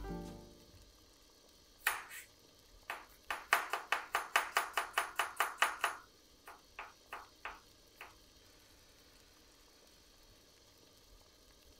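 Chef's knife slicing a carrot on a plastic cutting board: one cut, then a quick even run of about five knife strikes a second for some three seconds, then a few slower cuts.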